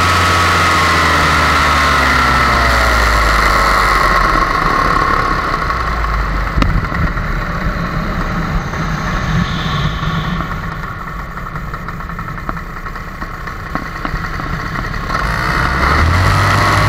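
Paramotor's two-stroke engine and propeller running in flight. About four seconds in it is throttled back to a lower, quieter run, and near the end it is brought back up to full power.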